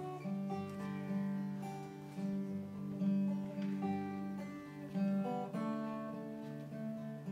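Acoustic guitar playing slowly, with held notes and chords that change about once a second.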